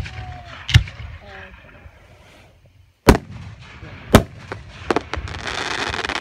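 Aerial firework shells bursting with sharp booms: one at the start, another just under a second later, two more around three and four seconds in, and a smaller one near five seconds. A dense crackling follows near the end.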